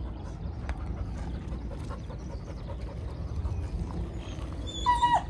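A dog gives a high, drawn-out whine near the end, its pitch dropping. Under it runs a steady low rumble.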